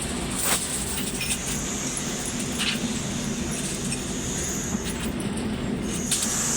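Steady work-site background noise with a high hiss that comes and goes, and a few sharp metallic clinks.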